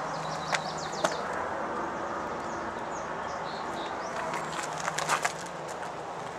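Outdoor ambience with a steady hiss and faint bird chirps, mostly in the first second and again around three seconds in. A few sharp clicks come through, the loudest around five seconds in.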